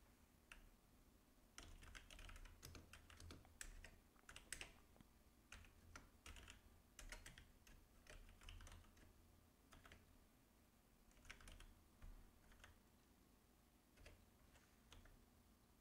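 Computer keyboard typing, faint, in irregular bursts of keystrokes with short pauses between, thinning to a few single keystrokes near the end.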